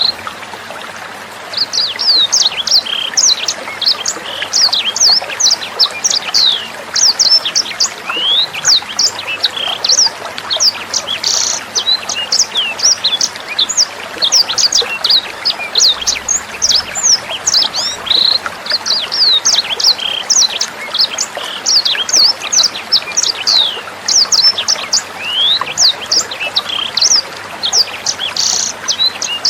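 Sanger bird singing a fast, unbroken stream of short, high, sweeping chirps, with steady trickling water beneath.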